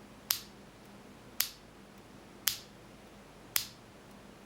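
Unmodified, stock Cherry MX Clear mechanical keyboard switch pressed and released sharply four times, about a second apart. Each release snaps the slider back up with a sharp click: the switch's stock return noise.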